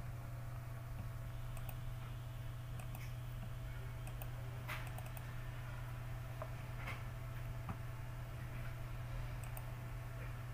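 Computer mouse clicking now and then, a handful of short sharp clicks spaced irregularly, over a steady low hum.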